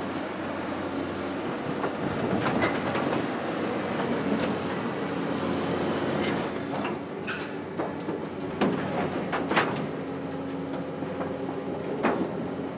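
Cat 320C L excavator's diesel engine running under hydraulic load as its bucket crushes a storm-wrecked corrugated steel grain bin, with metal creaking and several sharp cracks in the second half.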